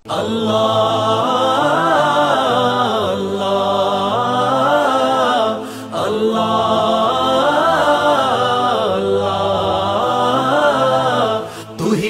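Slow devotional vocal music: layered voices sing a wordless, wavering melody in long phrases of two to three seconds, with a brief break about halfway and another near the end.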